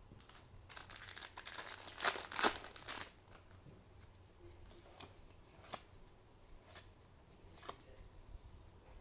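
A foil trading-card booster pack being torn open and crinkled for about three seconds. A few separate light clicks follow as the cards are handled.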